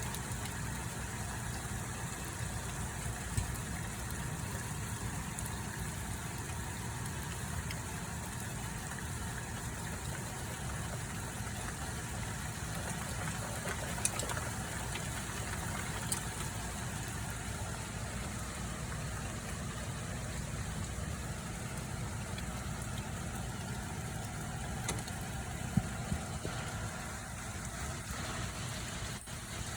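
Steady rumbling hiss of a rain and hail storm, with a few single sharp ticks from hailstones striking.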